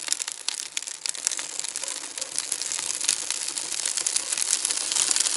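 Birch bark catching fire on split logs in the open firebox of a steel wood stove, crackling with dense, fast pops that grow louder in the second half.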